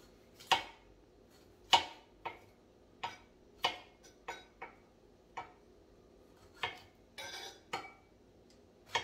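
Kitchen knife knocking on a cutting board while slicing a tomato: about a dozen sharp, irregular knocks, the two loudest in the first two seconds, with a short rustling scrape about seven seconds in.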